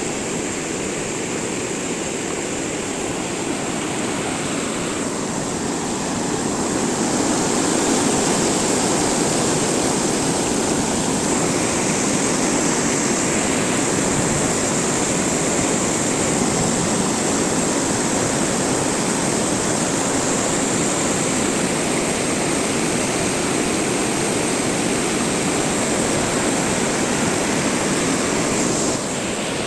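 River water rushing steadily, with a thin steady high-pitched tone above it.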